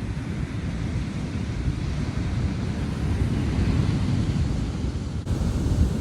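Wind buffeting the microphone, with ocean surf washing on a beach behind it.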